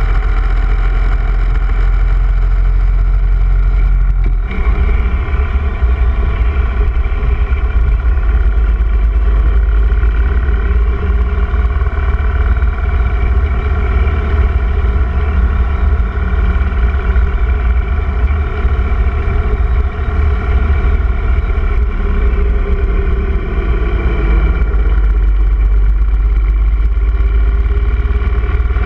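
Motorcycle engine running steadily while riding along at road speed, with wind rumbling on the handlebar-mounted microphone. The engine note shifts briefly about four seconds in.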